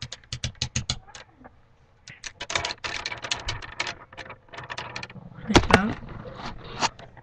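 Plastic pony-bead kandi bracelets clicking and rattling as they are handled close to the microphone, in quick runs of small clicks. About five and a half seconds in there is a brief wavering vocal sound.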